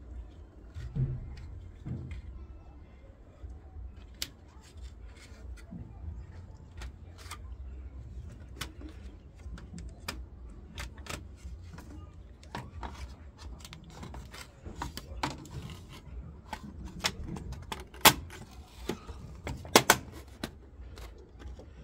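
Scattered sharp clicks and clacks of hard plastic and metal as a washing machine control board is handled and fitted back into its housing, with a few louder clacks near the end over a low background rumble.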